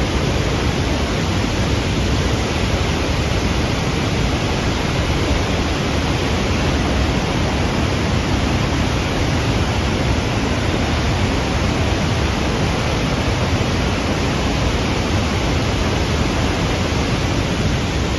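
Kosi River in flood, its swollen water rushing steadily.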